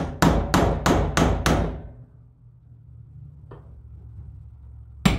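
Hammer blows on a small chisel, staking notches into the transmission thermostat block so the threaded bypass-eliminator plug can't back out. Six quick sharp strikes come at about four a second, and after a pause two more come near the end.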